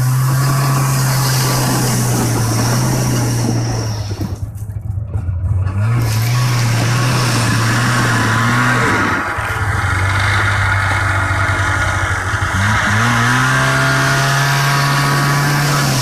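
A vehicle engine running under way over a constant rush of noise. The engine eases off about four seconds in, picks up again, and its revs climb a few seconds before the end.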